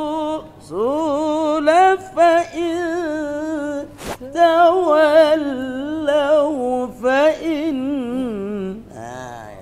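A man recites a Qur'an verse in melodic tilawah style, holding long drawn-out vowels that waver and turn in ornamented pitch, with short pauses for breath.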